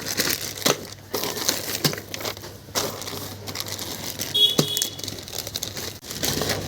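Packaging crinkling and rustling with irregular crackles as the horn relay kit is unboxed by hand, with a brief high tone about four and a half seconds in.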